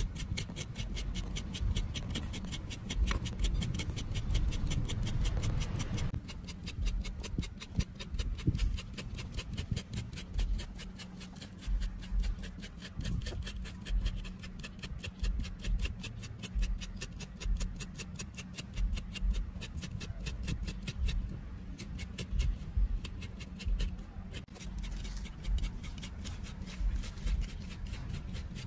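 Knife blade scraping aloe vera gel off the leaf, with soft rubbing and handling knocks, over a fast, even ticking.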